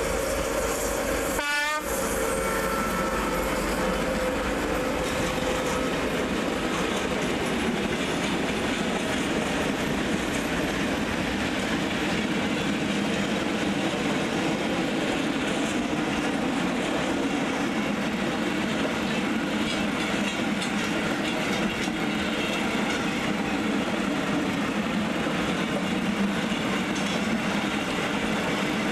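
Train running steadily on the rails, a continuous even noise with no break.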